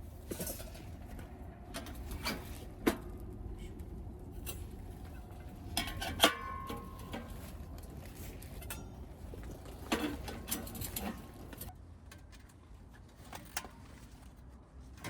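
Scattered clicks and knocks of things being handled, with a brief ringing clink about six seconds in and another cluster of knocks around ten seconds.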